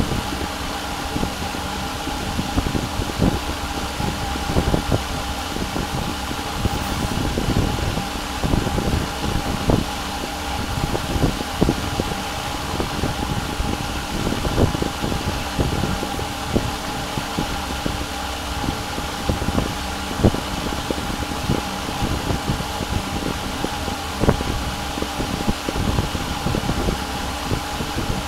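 Steady fan hum with a few fixed whining tones, and irregular soft low knocks scattered throughout.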